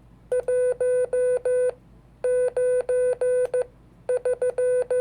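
Morse code sidetone beeping out the digits of a year: one steady mid-pitched tone keyed on and off in dits and dahs, three characters with short pauses between them.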